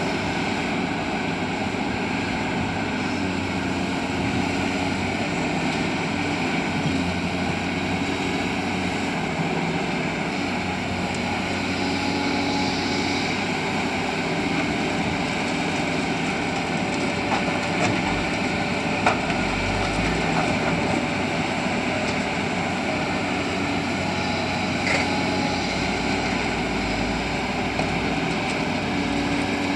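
Heavy diesel engine of a CAT 320D excavator running steadily as it works, its pitch rising and falling a little, with a deeper rumble twice and a few sharp knocks.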